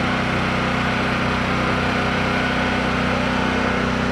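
A small engine running steadily at a constant speed, an even hum with no change in pitch.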